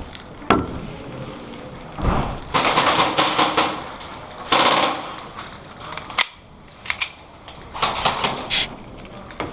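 Airsoft guns firing: rapid bursts of shots about two and a half seconds in, again near four and a half seconds, and near the end, with a few single sharp shots in between.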